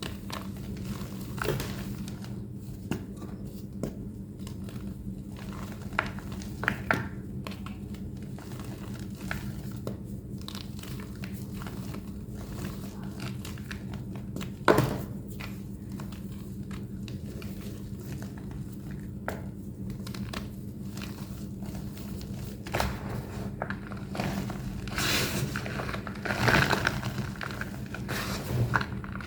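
Thick plain white homemade gym chalk block being crushed: scattered crackles and crunches, one sharp crack about halfway, then denser crumbling over the last several seconds. A steady low hum runs underneath.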